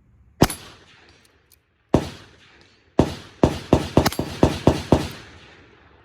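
Walther P22 .22 rimfire pistol firing: two single shots about a second and a half apart, then a quick string of about eight shots at roughly four a second, each shot with a short echoing tail.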